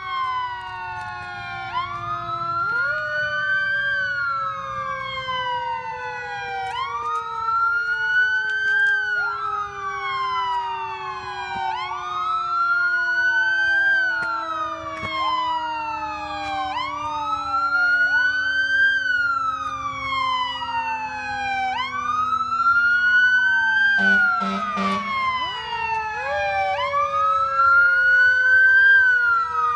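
Several fire truck sirens wailing together and out of step, each rising quickly and falling slowly about every five seconds, over a lower siren tone that slowly winds down. A few short horn blasts come late on.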